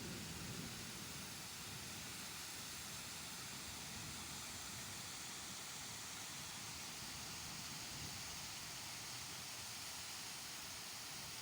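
Rain falling steadily: an even hiss with no separate drops or other sounds standing out.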